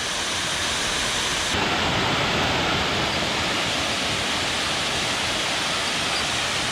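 Waterfall: a steady rush of falling water, its tone shifting slightly about a second and a half in.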